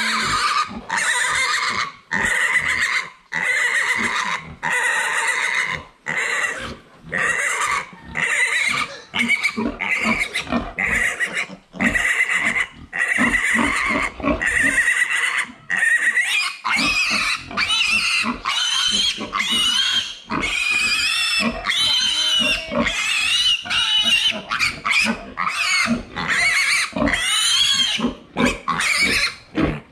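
A piglet squealing, high-pitched and nearly nonstop while it is held upside down and castrated. The squeals come one after another, broken by short breaths about once a second, and grow higher and more wavering in the second half.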